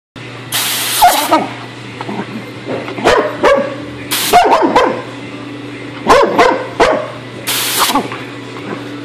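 Three short hissing blasts of compressed air from an air hose's blow gun, each answered by a black Labrador puppy barking and yipping at it in quick runs of barks.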